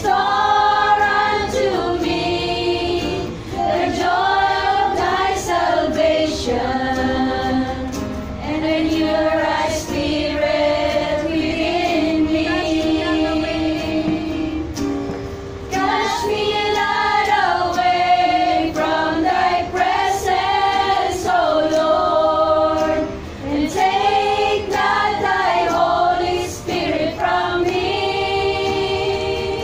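A small group of women singing a Christian worship song together in sustained phrases, accompanied by an acoustic guitar.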